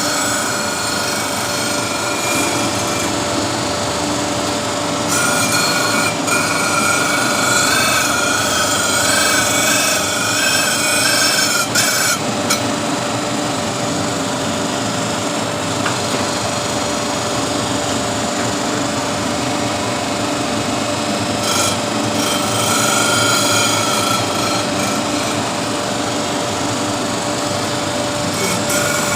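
A grinding wheel sharpening the teeth of a large chain-sprocket gear cutter: a steady motor hum under a rasping grind, with a wavering whine that comes and goes in passes lasting several seconds.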